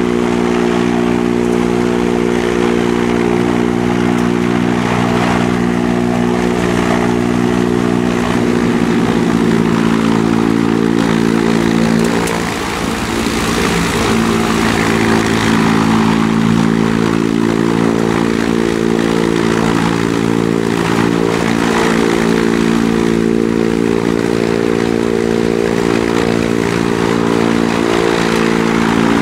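Antonov An-2's nine-cylinder Shvetsov ASh-62 radial engine and propeller running on the ground, mostly steady. The engine speed shifts about halfway through, with a short dip in loudness, then settles back to a steady run.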